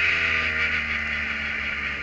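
Kohler engine of an open-cockpit prototype race car running in second gear off the throttle, its note falling slightly as the car slows, over a steady hiss of wind and road noise.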